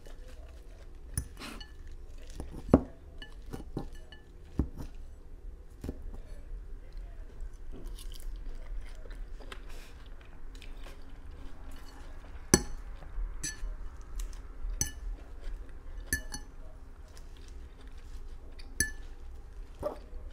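Eating salad: a metal fork clinks sharply against a dish every second or two as it picks up leaves, with chewing in between.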